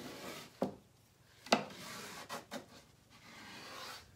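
Scraping and wiping of dried chalk paste off a chalkboard and the edge of its wooden frame, a soft rubbing broken by four sharp knocks of the tool against the board, the loudest about a second and a half in.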